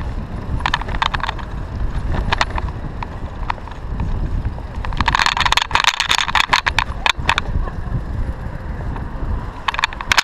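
A city-share bicycle rattling as it is ridden over the pavement, with a steady low rumble of wind on the microphone. Clusters of sharp rattles come now and then, with a long, dense burst about five seconds in.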